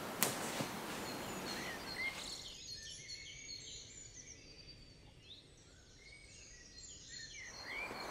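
Soft forest noise for the first two or three seconds, then small birds chirping in many short, quick calls, with the background dropping quieter under them.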